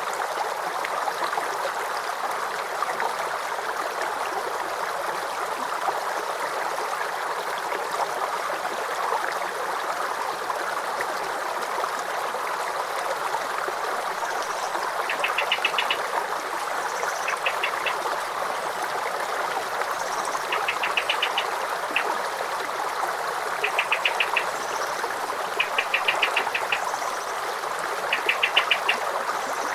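Running water making a steady rushing sound. From about halfway through, short high rapid trills, about a second each, sound about six times over it.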